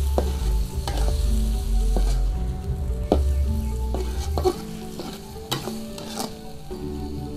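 Chicken hearts stir-frying in a stainless steel wok: a steady sizzle, with a metal spatula scraping and clinking against the pan several times as the food is stirred.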